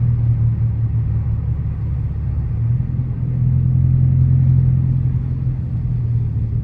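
Dodge R/T's engine and exhaust running with a steady low drone while the car is driven, swelling slightly in the middle and easing off near the end.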